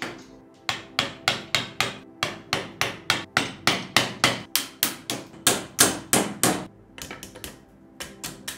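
Hammer blows driving a chisel-type tool into the old wood left in a rusty kitchen knife's handle tang to clear it out: a fast, even run of sharp knocks, about three a second, turning to fewer, lighter taps near the end.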